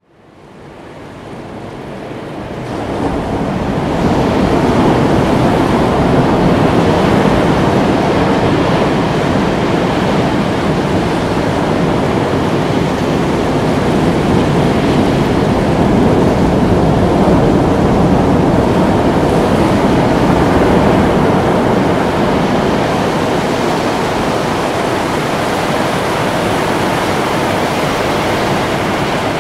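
Ocean surf washing and breaking steadily, fading in over the first few seconds.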